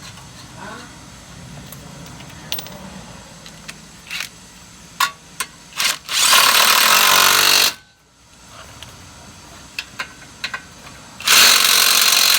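Impact wrench hammering in two bursts, the first about a second and a half long, the second about a second, running down and tightening the nut on the ball joint's pinch bolt. Light metal clicks come before the first burst.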